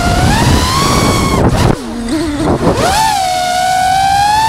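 FPV drone's motors whining in fast flight. The pitch rises, drops sharply about a second and a half in, wavers low, then climbs back about three seconds in and holds steady, over a rushing noise.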